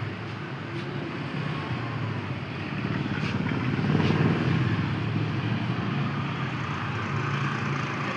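A motor vehicle engine running, its sound swelling to a peak about four seconds in and then easing, over steady street noise.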